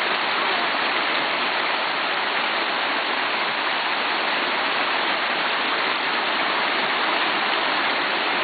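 Mountain stream rushing over rocks close by, a steady even rush of water.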